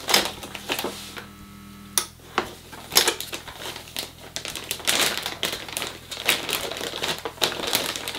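Hand-operated impulse heat sealer: its arm clicks down and a steady hum runs for about two seconds while it seals a plastic bag, ending in a click. Then the plastic bag of grain spawn crinkles and rustles as it is handled and repositioned under the sealer arm.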